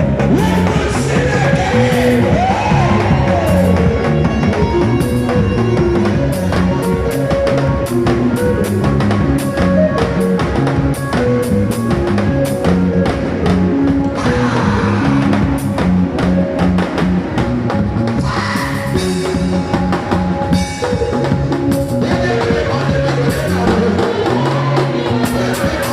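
Music with a drum kit keeping a steady beat under bass and other pitched instruments.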